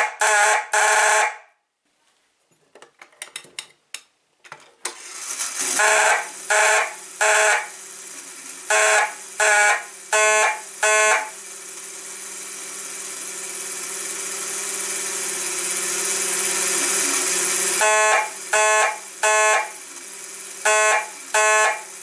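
Fire alarm horn sounded in short, loud blasts grouped in twos and threes: the audible code pulsed by a 1960s Standard Electric (Edwards) BC-1250 coded pull station's clockwork mechanism. A run of small mechanical clicks comes a few seconds in, and a steady noise swells louder between the blast groups in the middle.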